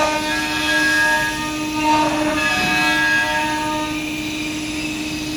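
CNC router spindle running at speed as it routes a wooden door panel, a steady whine made of several held tones over a rushing noise, which shifts briefly about two seconds in.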